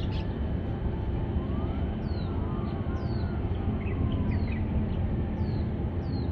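A deep, steady low rumble, with a bird's short falling chirps repeated about once a second high above it.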